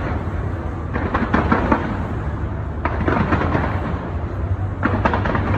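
Fireworks going off in rapid volleys of bangs and crackles, in three clusters (about a second in, around three seconds in, and near the end), over a steady low rumble.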